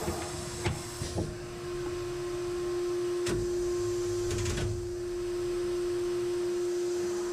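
Steady machine hum with a few sharp clicks and knocks in the first half, from a Tormach PCNC 440 CNC mill during a tool change to an engraving bit.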